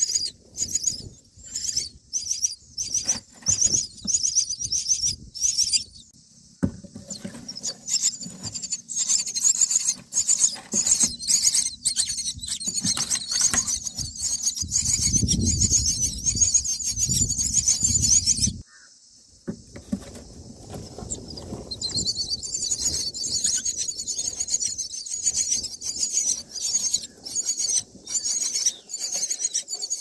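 Common myna nestlings giving rapid, high-pitched begging calls while being fed. The calling breaks off for a moment about two-thirds of the way through, then starts again. Low rustling sounds run under the calls in the middle.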